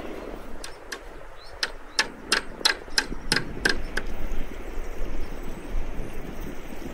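Clay pots, lids and a wooden spoon knocking together in a string of sharp clicks, about nine in the first four seconds, followed by a steady hiss.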